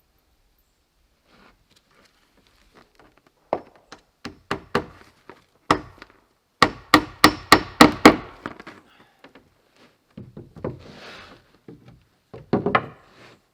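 Hammer driving nails into wood, blow after blow: a few single strikes, then a quick run of about six in under two seconds. A soft rustle comes after, and a last few strikes near the end.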